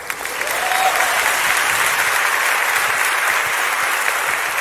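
Audience applause, a dense clapping that starts abruptly and holds steady; canned applause added at the end of the sketch.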